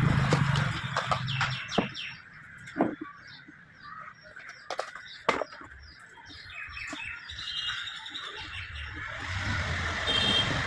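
Scattered sharp clicks and knocks of tools on the mixer grinder motor's metal casing and screws, as its nut bolts are being undone, with birds chirping in the background.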